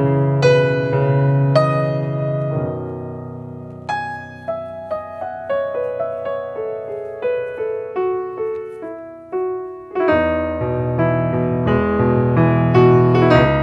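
Piano music: a melody of single struck notes that thins out and grows softer a few seconds in, then fuller chords with a bass line return about ten seconds in.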